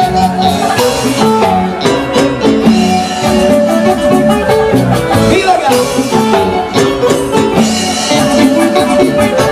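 Loud live band music with a steady dance beat, played over the concert PA: an Andean huayno.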